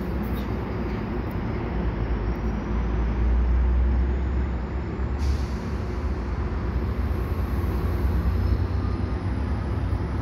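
EXO commuter train of Bombardier multilevel coaches pulling out, pushed by a GMD F59PHi diesel locomotive with a 12-cylinder EMD 710 engine. The low diesel rumble grows louder about three seconds in, there is a short air hiss about five seconds in, and a faint whine rises slowly in pitch throughout.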